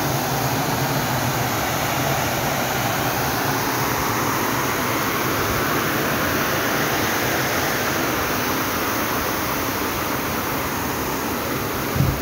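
A steady rushing noise with no rhythm or pitch, even from start to end. Right at the end, low rumbling bumps of wind on the microphone start.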